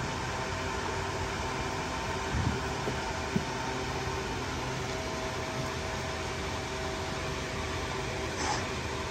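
Steady machine-like hum with a constant noisy hiss, with a soft thump about two and a half seconds in and a sharp click about a second later.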